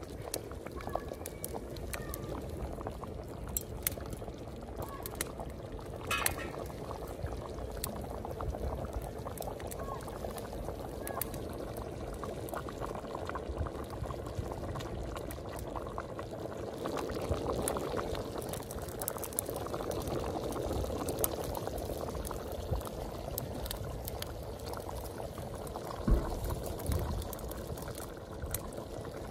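Rice boiling hard in jaggery water in a large metal pot over a wood fire: steady bubbling with many small pops, and one sharper knock near the end.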